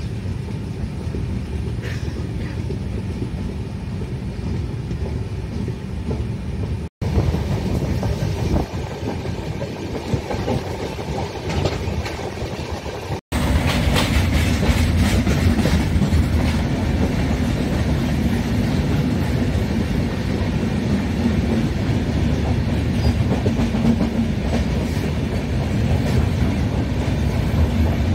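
Passenger train running along the track: a steady rumble with wheel clatter over the rail joints. It is broken by two abrupt cuts, and the section after the second cut is louder.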